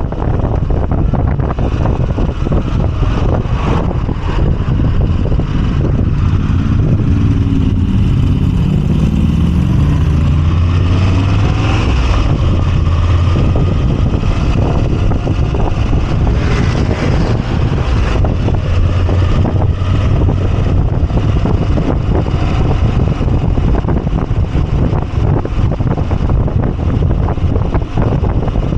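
Moto Guzzi V85TT's air-cooled V-twin running under way, mixed with heavy wind rush on the microphone. The engine note climbs between about six and ten seconds in as the bike accelerates.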